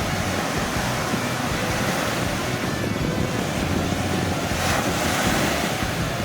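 Black Sea surf washing onto a sandy beach, with wind buffeting the microphone. A wave swells louder about three-quarters of the way through.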